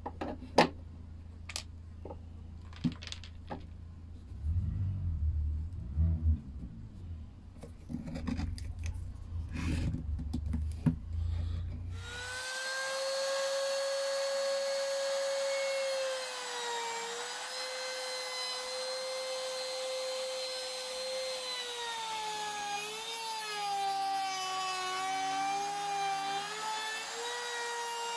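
A few clicks and knocks, then, about twelve seconds in, a router starts with a steady high whine. Its pitch drops and wavers as the bearing-guided bit cuts a butt-hinge recess into the beech door edge through a plywood jig.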